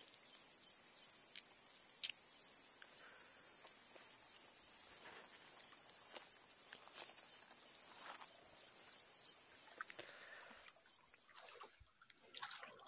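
A steady high-pitched drone of insects in the surrounding grass, with a few faint clicks and rustles from handling fishing line, the sharpest about two seconds in.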